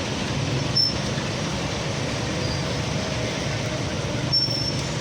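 Steady engine noise of heavy machinery running, with two brief high-pitched squeaks, one about a second in and one near the end.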